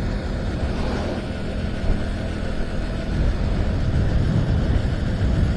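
Motorcycle cruising at steady speed on a paved road: a steady engine rumble mixed with wind noise on the bike-mounted microphone.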